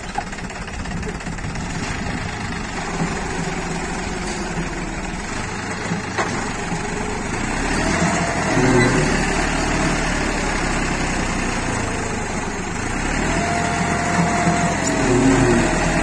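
John Deere 5050 D tractor's three-cylinder diesel engine running steadily while the tractor pulls a tine implement through wet mud, growing louder about halfway through and again near the end.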